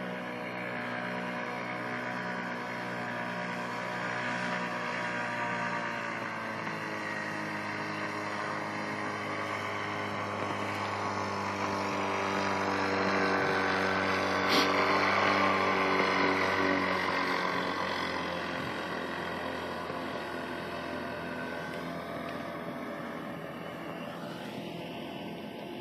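Paramotor's small engine and propeller running overhead. It grows louder to a peak about halfway through, then fades as the craft moves off, its pitch shifting slightly. There is a single sharp click near the loudest point.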